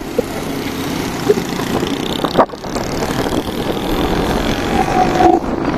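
Busy road traffic: motorcycles and cars passing with engines running, with a brief break in the sound about two and a half seconds in.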